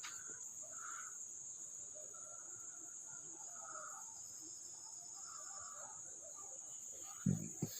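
A faint, steady high-pitched drone in the background, with scattered faint handling sounds and a brief low knock near the end.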